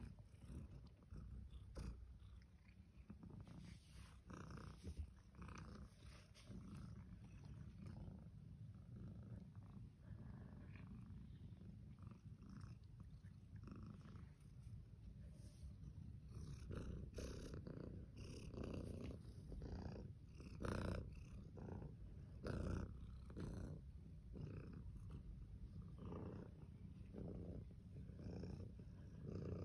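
Calico mother cat purring steadily close to the microphone. About halfway through the purr grows louder and pulses about once a second.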